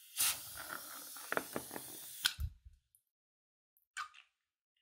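Scissors snip the neck of a slime-filled latex balloon, and about two seconds of steady hissing follow as it empties. Several clicks fall inside the hiss, which ends in a sharp click and a soft thud. A short squish of slime comes near the end.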